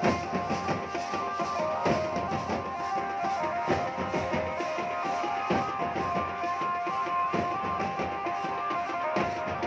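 Indian wedding band (band baja) playing dance music: a held, tuneful melody line over a busy drum beat, with heavy drum strokes about every two seconds.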